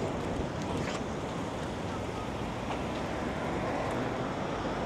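Steady city street ambience: an even wash of traffic and general street noise, with no clear voices standing out.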